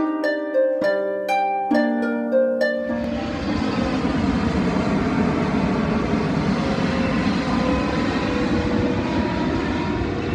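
Plucked harp-like intro music for about the first three seconds, then it cuts off and is replaced by the steady jet noise of a Boeing 777-300ER's GE90-115B engines as the airliner passes low on approach with its gear down.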